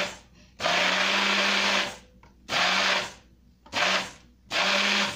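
Hand-held immersion blender puréeing soaked dates in water, run in short pulses: one burst of about a second and a half, then three shorter ones, the motor stopping between each.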